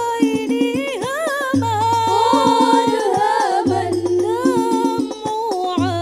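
Banjari sholawat: two women's voices singing a melismatic devotional melody over a rhythm of hand-struck rebana (terbang) frame drums. A low drum note sounds about every two seconds.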